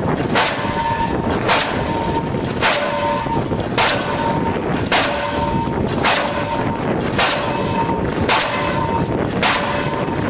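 Link-Belt diesel pile hammer running, its ram firing and striking the pile in a steady rhythm of about one blow a second, nine blows in all, with a steady tone between blows.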